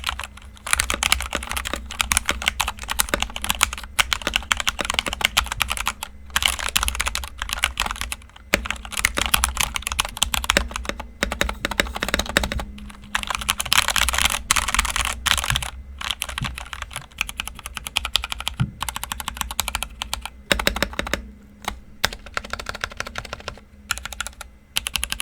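Typing sound test on a KEMOVE Snowfox DK61 mechanical keyboard with Gateron Speed Silver linear switches: rapid, continuous key clacks in runs, broken by short pauses.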